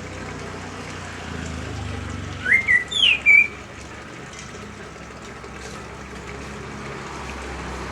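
Pet cage bird giving a short burst of about four whistled chirps, rising and then falling in pitch, midway through, over a steady low hum.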